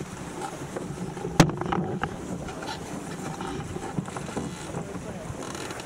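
Wind and water rushing past a sailboat's hull as it sails fast downwind, with a sharp knock about one and a half seconds in, followed by a few lighter clicks.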